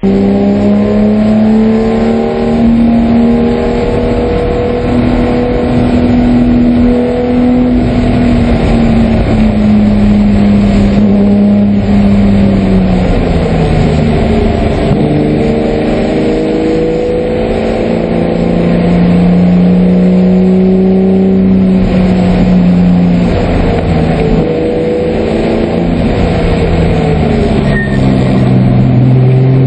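Porsche 996 race car's flat-six engine heard from inside the cockpit, running hard under load. Its pitch climbs steadily, then drops at each shift or lift for a corner, about midway through and again near the end.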